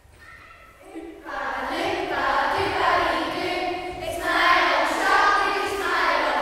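A group of children singing together, starting about a second in after a brief hush.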